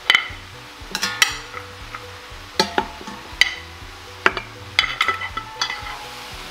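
Metal tongs clinking against the stainless-steel inner pot of an Instant Pot as seared venison shank pieces are set into it: about nine sharp, ringing clinks at uneven intervals.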